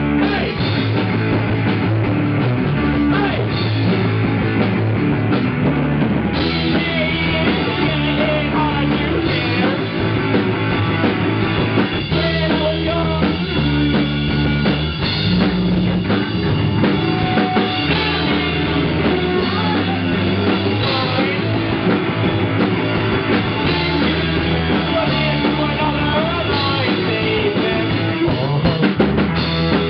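A live rock band playing loud: electric bass, electric guitar and a drum kit, with a vocalist singing at the mic. The recording sounds dull and poor, cut off in the treble.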